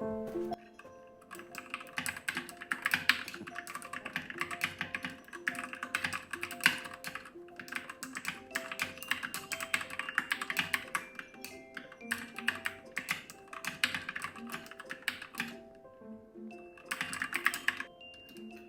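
Fast typing on a mechanical keyboard with Gateron Milky Yellow linear switches, not yet lubed, and PBT XDA keycaps: dense rapid key clacks in several runs with short pauses, over background music.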